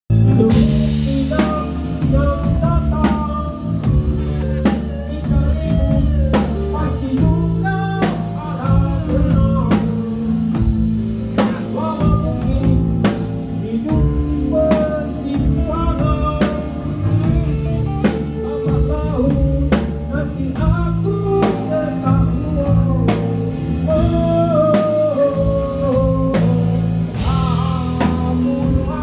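Live rock band playing: a singer sings over electric guitar and a drum kit.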